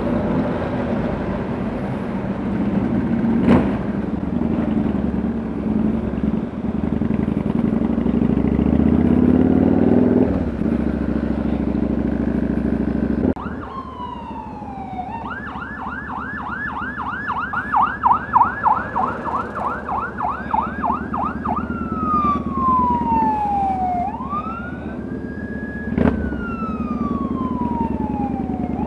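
Motorcycle engines running as a group rides through an underpass. About thirteen seconds in, the engine noise drops suddenly and an electronic emergency-vehicle siren takes over. It sweeps down and up in slow wails, with a fast yelp of about three or four cycles a second in the middle.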